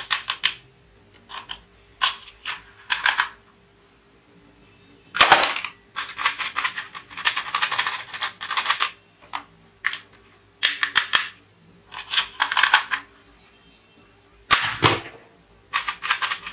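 Plastic toy revolver clicking and snapping as its mechanism is worked, in short bursts of rapid clicks. The loudest snaps come about five seconds in and again near the end.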